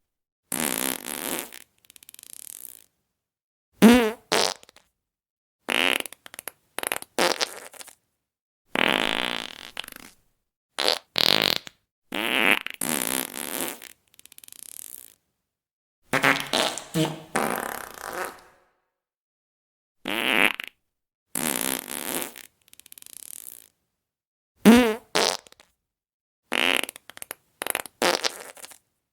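A run of fart sound effects played one after another: about fifteen short farts of varying length and pitch, some with a wavering buzzy tone, each separated by a gap of dead silence.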